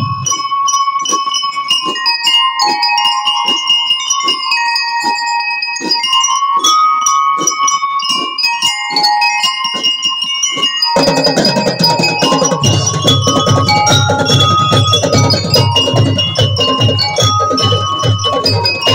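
Drum and lyre band playing live: bell lyres carry a ringing melody over light, regularly spaced ticks. About eleven seconds in, the drums come in with a steady beat under the lyres.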